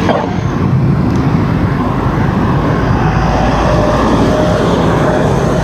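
Steady wind noise on a handlebar-mounted camera's microphone, with tyre and road noise from a bicycle riding on a wet road and traffic going by.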